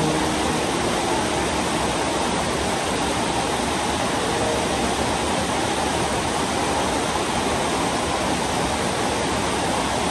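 Steady rain falling: a dense, even hiss with no break.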